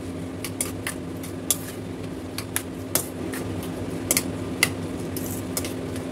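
A metal spoon clinking and scraping irregularly against a stainless steel bowl as chopped onion and tomato are stirred together, over a steady low hum.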